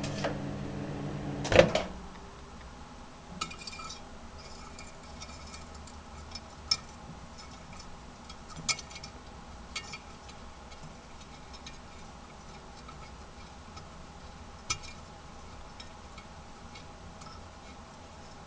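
Microwave oven running with its steady magnetron hum, which stops with a loud clunk about a second and a half in. After that only faint room noise with a handful of sharp light clicks and clinks.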